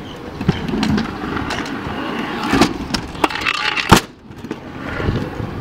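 Stunt scooter wheels rolling on concrete and ramps, with frequent clacks and knocks from the scooters; one sharp loud clack just before four seconds in, then the sound drops away briefly before rolling noise returns.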